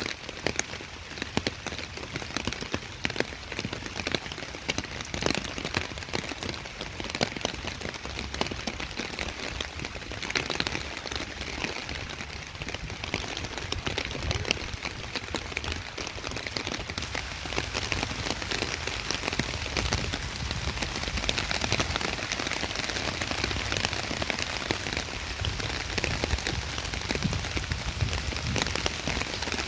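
Steady rain falling on a wet path: a dense, even hiss made of countless small drop hits.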